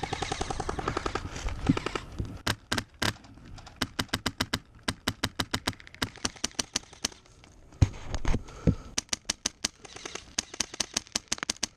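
Airsoft rifle firing in rapid strings of sharp shots, several a second, broken by short pauses.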